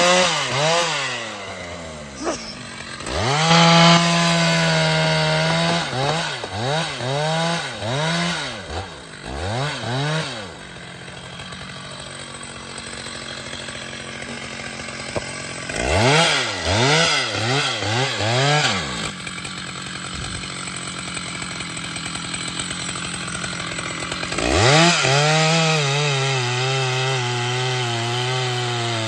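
Two-stroke chainsaw revving: the throttle is blipped up and down about once a second in short runs, dropping back to idle between them. About 25 s in it climbs to high revs and holds there steadily.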